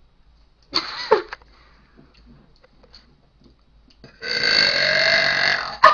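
A girl burping: a short sound about a second in, then a long, loud burp starting about four seconds in and lasting nearly two seconds.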